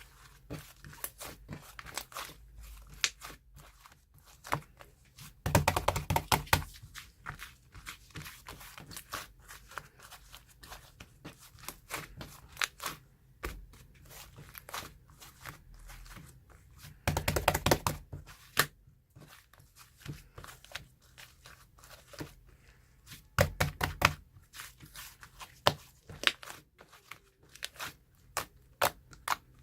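Close handling noises: a scatter of small clicks and taps, with three denser, louder clusters about five, seventeen and twenty-three seconds in.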